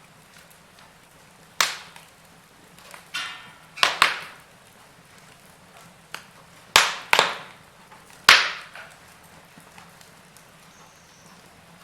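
Wood fire in a fireplace crackling: several sharp pops and snaps a second or two apart, two of them in quick pairs, the loudest about eight seconds in, over a faint steady background.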